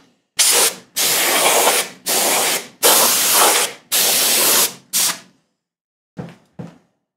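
Canned compressed air blown through its straw in about six blasts of roughly a second each, blowing dust out of a CD changer's carousel tray. Two short, fainter puffs follow near the end.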